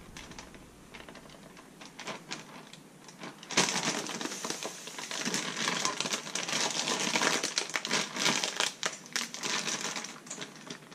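Plastic zip-top bag being pressed shut and handled: the zipper clicks and the plastic crinkles. Faint at first, then louder and busier from about three and a half seconds in.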